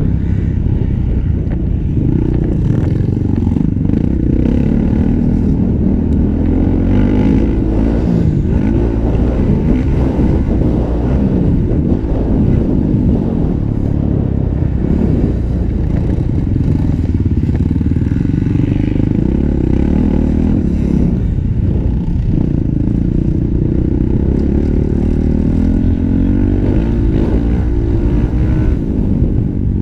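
Honda 450 motocross bike's single-cylinder four-stroke engine running hard around the track, its pitch rising and falling over and over with throttle and gear changes, heard from the bike's onboard camera.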